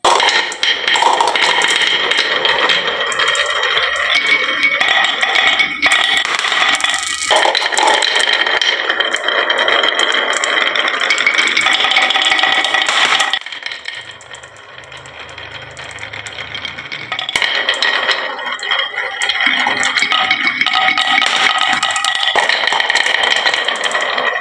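Many marbles clattering and rolling down a wooden marble run in a dense, continuous rattle of clicks, with a steady ringing over it. It drops quieter for a few seconds about halfway, then builds again.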